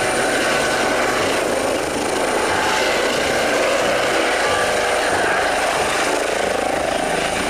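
Eurocopter EC135 air ambulance helicopter hovering low: steady rotor and turbine noise with a thin, high, steady whine over it.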